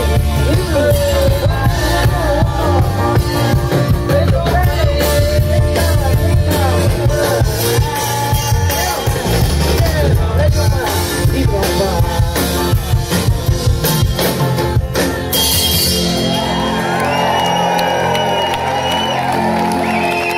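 A live band playing with singing, acoustic guitar and a drum kit, while the crowd shouts and whoops. About three-quarters of the way through, the bass and drums drop away and held notes go on.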